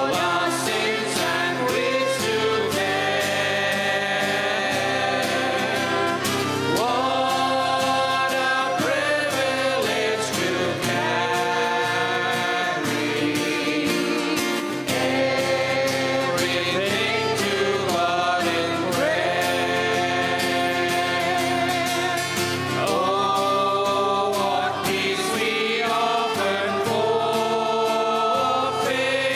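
Church worship band and several singers performing a Christian song together, voices carrying the melody over keyboard and guitar accompaniment with a steady beat.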